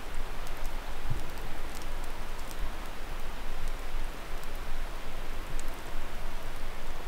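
Steady rushing outdoor noise of a snowy spruce forest, with scattered faint ticks and a low rumble underneath.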